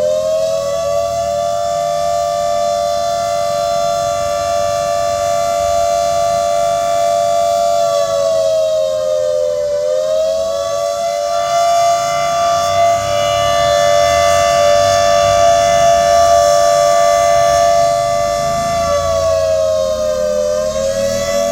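Civil defence siren sounding a long, loud, near-steady alert wail on two close notes. Its pitch sags briefly and climbs back about every ten seconds.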